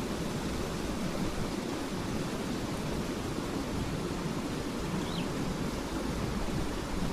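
Steady outdoor rushing noise, even and unbroken, with a faint short chirp about five seconds in.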